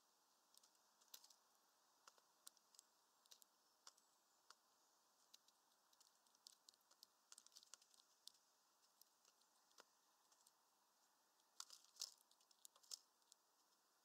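Faint, irregular tapping and crinkling of a great tit pecking at peanuts through a mesh feeder bag, with a quicker, louder flurry of pecks near the end.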